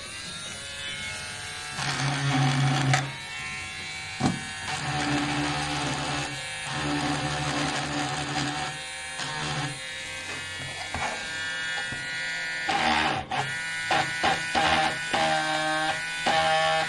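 Mini cordless rotary tool drilling, its small motor whining in steady tones that shift in pitch as the bit is pressed in and eased off. In the last few seconds it stops and starts several times in short runs.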